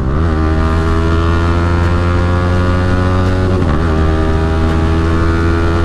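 Yamaha R15M's single-cylinder engine pulling on the move, its pitch climbing slowly, with a short dip about three and a half seconds in before it climbs on again. Wind and road noise run under it.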